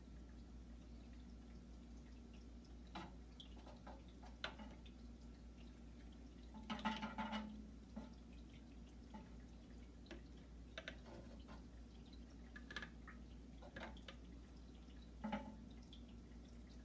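Faint, irregular drips and small plops of water at a home aquarium, the loudest little cluster about seven seconds in, over a low steady hum.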